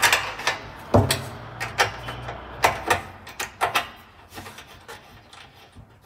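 Irregular metallic clicks and clinks of a small spanner working a brass burner jet loose from a gas hob's supply pipe, busiest in the first few seconds and thinning out toward the end. A low steady hum runs under the first half.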